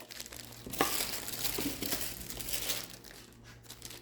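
Packaging being handled and unwrapped, with crinkling and rustling that is busiest through the middle and dies down near the end.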